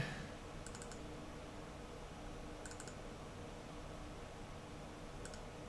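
Faint small clicks in three short clusters, about two seconds apart, over a low steady hum.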